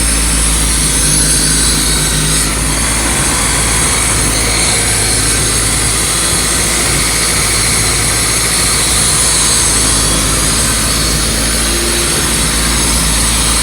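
Honda B20 four-cylinder engine in an EK Civic running steadily and loud through a Yonaka exhaust. The owner is chasing a vacuum leak on it.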